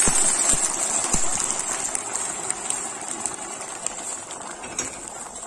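A steel pot of rice for pilaf bubbling and hissing as just-added hot water boils up over the oil-toasted rice, the hiss fading steadily. A few low knocks come in the first second or so.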